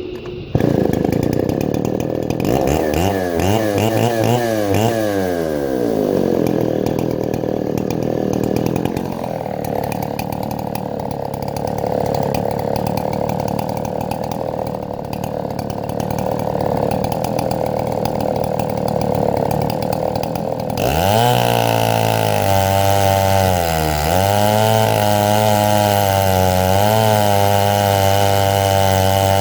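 Stihl 070 clone two-stroke chainsaw running under load in an Alaskan chainsaw mill, cutting mesquite; the engine pitch sags and recovers repeatedly as the cut loads it, with an abrupt change in the sound about two-thirds of the way through. The saw is running rich, according to its owner.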